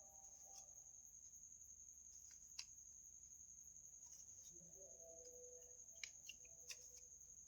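Near silence, with a steady faint high-pitched whine and a few faint clicks of a Rubik's cube's layers being turned, most of them together near the end.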